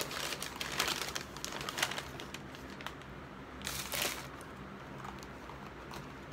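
Brown paper fast-food takeout bag crinkling and rustling as it is handled and items are pulled out of it. The rustling comes in bursts through the first two seconds and again about four seconds in, then dies down.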